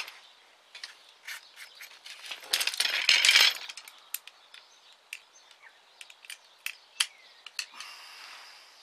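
Light clicks and clinks of carbon fibre tent pole sections being handled and taken apart on their elastic shock cord, with a louder rattling flurry about three seconds in.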